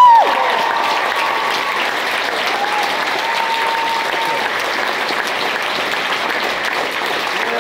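Theatre audience applauding steadily, a dense clapping crackle. A loud held note breaks off just at the start, and a faint held tone sounds in the middle.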